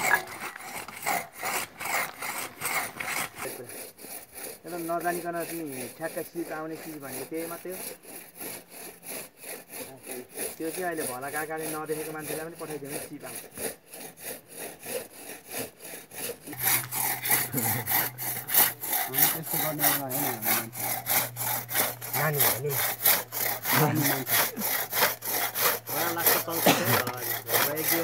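Hand saw cutting through a pine trunk in quick, even back-and-forth strokes, about three a second, growing louder and sharper about two-thirds of the way in.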